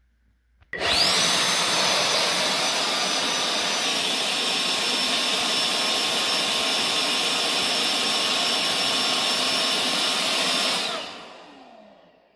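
The battery-powered electric fan of a PIEPS JetForce avalanche airbag starts abruptly and runs in reverse, sucking the air back out of the inflated airbag so that a buried skier would have an air pocket. It makes a steady high whine over rushing air. The whine drops slightly about four seconds in, and the fan winds down and stops near the end.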